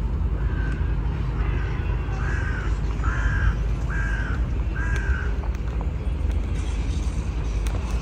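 A crow cawing about six times in an even series, roughly one caw a second, loudest in the middle and stopping about five seconds in, over a steady low rumble.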